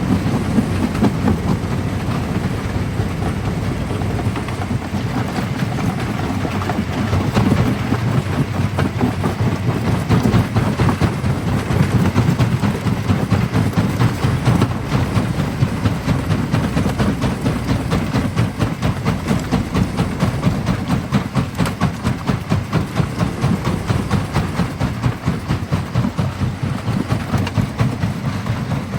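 Primary jaw crusher working under load, breaking black stone: a continuous deep rumble thick with the cracks and knocks of rock being crushed, pulsing about twice a second in the second half.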